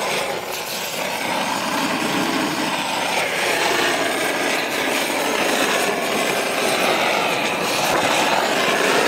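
Gas roofing torch burning with a steady roar while heating torch-on bitumen felt. Its flame is heating slowly, which the worker puts down to the gas cylinder being nearly empty.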